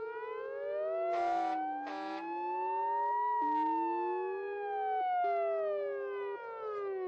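Several fire engine sirens sounding together, their wailing tones rising and falling slowly over one another, with three short horn blasts in the first four seconds.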